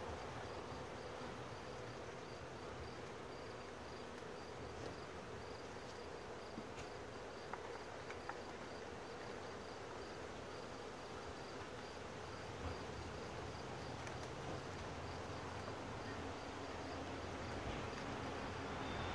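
Honeybees buzzing at an open hive, a steady faint hum, with a high insect chirp pulsing evenly about twice a second over it. A couple of small clicks come about eight seconds in.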